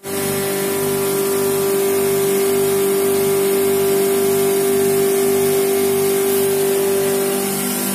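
Electric stainless-steel grinding mill (pulverizer) running while grain is poured into its hopper: a steady machine hum with one strong tone held throughout.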